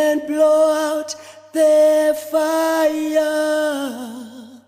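A single voice singing long held notes without accompaniment, the last note wavering with vibrato and falling in pitch near the end.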